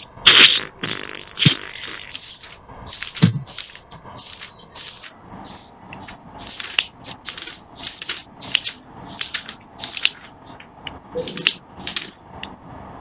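Repeated short crackling, scraping noises at an irregular pace of about two a second, each a brief burst of noise.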